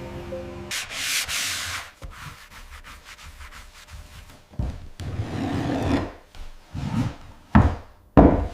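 Sanding: several separate rubbing strokes, each about a second long, followed near the end by two short, loud knocks.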